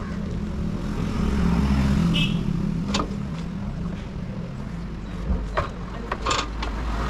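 Motorcycle engine running with a steady low hum that swells briefly about a second in, with a few sharp clicks over it.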